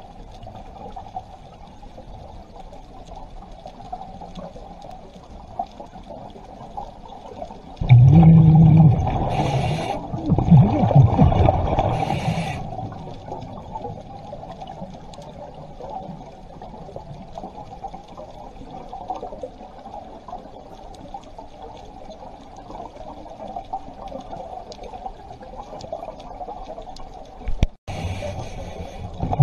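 Underwater sound through a camera housing: a steady low wash of the sea, and a scuba diver breathing through the regulator. About eight seconds in, exhaled bubbles rumble loudly for several seconds, broken by two short high hisses.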